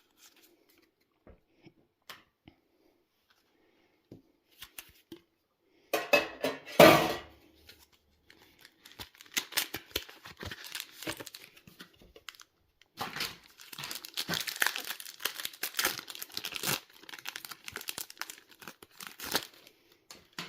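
A foil booster pack of Yu-Gi-Oh! Rarity Collection cards being torn open, a loud tear about six seconds in, followed by long stretches of the foil wrapper crinkling as it is handled. Faint scattered ticks come before the tear.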